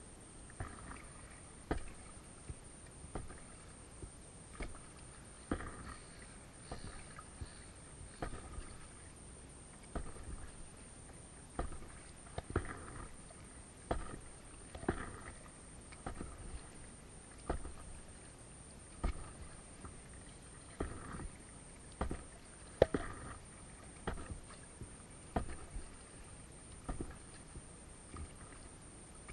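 Paddling an Itiwit x500 inflatable kayak: steady double-blade paddle strokes, each a sharp tap followed by a short splash of water, about every second and a half.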